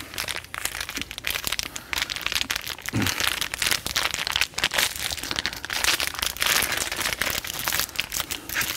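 Clear plastic packaging bag crinkling and rustling in the hands as a new torque wrench is slid out of it.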